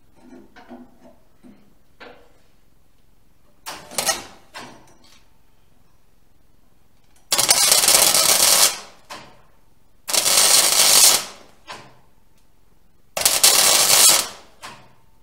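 Electric arc welding in bursts: a brief tack about four seconds in, then three welds of about a second and a half each, a second or so apart. A few light knocks of handling come first.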